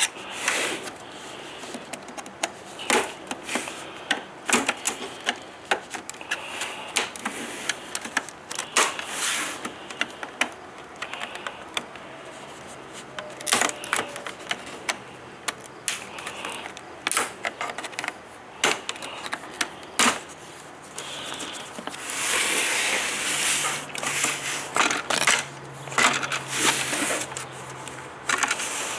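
Plastic snap tabs of an LCD monitor's front bezel clicking and popping loose as the casing seam is pried apart with a screwdriver: irregular sharp clicks and snaps, with a few seconds of plastic scraping about two-thirds of the way in.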